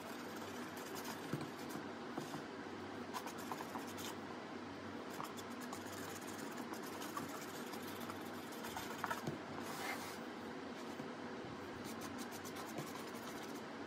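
Light scratchy brush strokes and small taps of a paintbrush working paint onto a mask, over a steady faint hiss.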